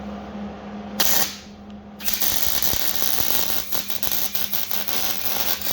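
Wire-feed (MIG) welder arc crackling and spattering on frame steel: a short burst about a second in, then a longer bead from about two seconds in. It is running with the shielding gas shut off, and it sounds angry, the sign of welding without gas coverage.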